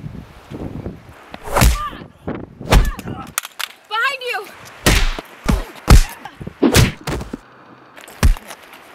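Fist-fight hits: about seven sharp punch and whack impacts, spaced irregularly, with a short yell about four seconds in.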